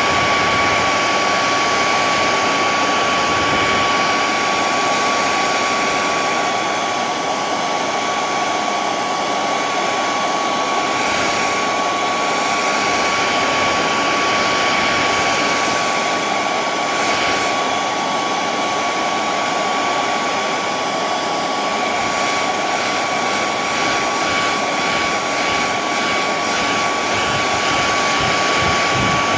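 An electric blower motor running steadily: a loud, even rush of air with a constant high whine.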